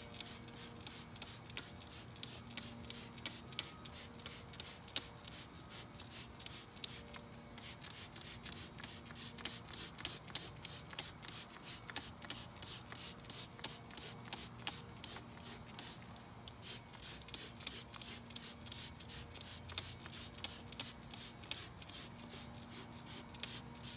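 Hand trigger spray bottle squirting foaming coil-cleaner mix onto a radiator in quick repeated pumps, about two to three squirts a second, with a couple of short pauses.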